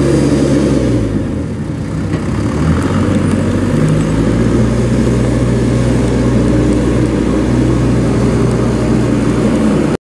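Diesel engine of a Komatsu WB142-5 backhoe loader running. Its speed dips about a second in and picks back up, then it runs steady until the sound stops abruptly near the end.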